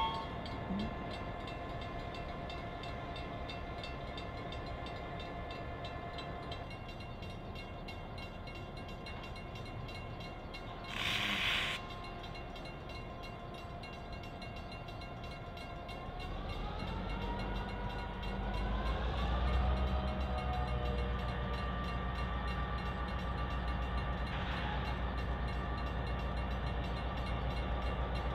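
EMD GP9 diesel-electric locomotive's V16 engine idling, with a short hiss about eleven seconds in. From about sixteen seconds the engine throttles up in two rising steps and its low rumble grows louder.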